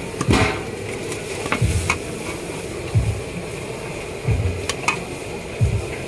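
A metal scoop and spatula scraping and clinking against a large steel tray as fried noodles are scooped out, with a few dull thumps over a steady background hum.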